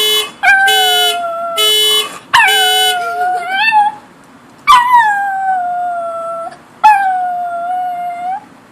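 A dog howling along with a car alarm's pulsing electronic tone. The alarm stops about three seconds in, and the dog keeps howling: two more long howls, each starting high and sliding down.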